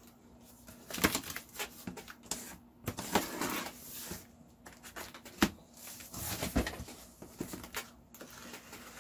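Packing tape being peeled and torn off the seam of a cardboard shipping box, with irregular rustles, scrapes and light knocks of hands on the cardboard.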